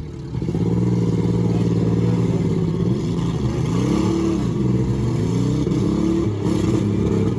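Demolition derby car engines running hard, revving up and down repeatedly as the cars accelerate and back off.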